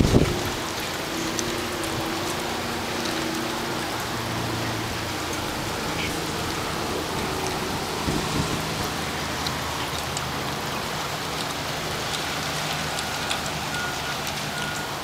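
Steady rain falling on the harbour water and the submarine's deck, an even hiss, with a faint low steady hum underneath.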